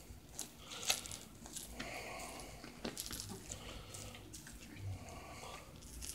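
A small cat toy jingling and clicking lightly in irregular short bursts as a cat wrestles it on its back, kicking at it with its hind legs.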